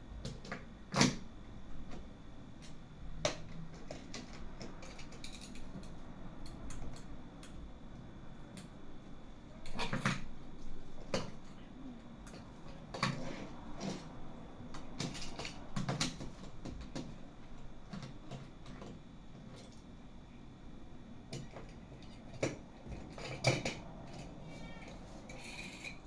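Small toy cars being handled and set down: scattered light clicks and knocks, a few of them sharper, in small clusters.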